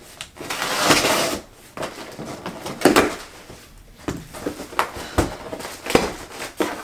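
Packing tape being pulled off a cardboard shipping box: a long ripping noise about a second in, a sharp snap near three seconds, then shorter scrapes and rustles of the cardboard being handled.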